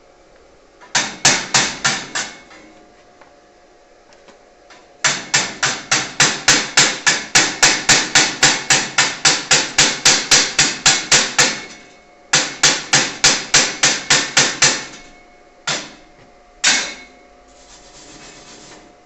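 Chipping hammer knocking slag off a freshly stick-welded bead on 2 mm steel sheet. It gives quick runs of sharp metallic taps, about four a second, in three bursts, and then two single knocks near the end.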